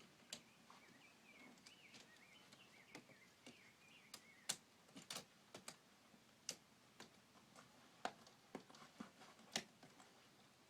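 Faint, irregular clicks and taps of plastic K'nex pieces knocking together as the worn suit moves, a dozen or so scattered through, with a faint wavering whistle-like tone in the first few seconds over a quiet room.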